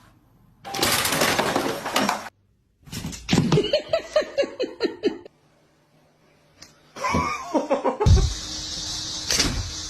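A loud burst of noise, then a person laughing in a quick run of short falling 'ha' pulses, followed by a jumble of other sounds with music underneath.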